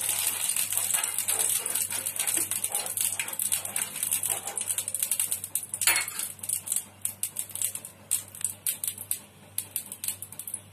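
A steel spoon scraping and clinking against a nonstick frying pan as it spreads a little warm oil around, with one sharp clink about six seconds in when the spoon is set in a small metal bowl. Fewer, lighter ticks follow.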